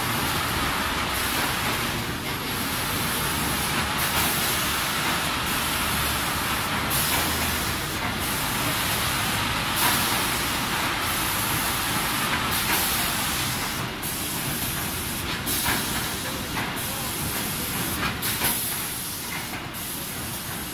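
Automatic plywood belt sanding line running: a steady, loud, even hiss of the sanding machine and its conveyors.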